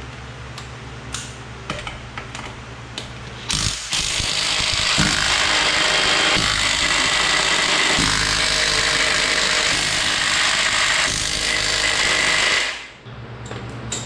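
DeWalt cordless impact wrench hammering as it runs the lug nuts down on a rear wheel. It is one sustained run of about nine seconds, starting a few seconds in and stopping shortly before the end. Before it starts there are a few light clicks of the tool being handled.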